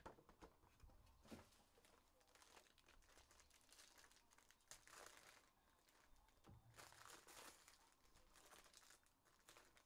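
Faint crinkling and tearing of a trading-card pack's silvery wrapper as it is ripped open and crumpled by hand, in bursts that are loudest just before the middle and again in the second half.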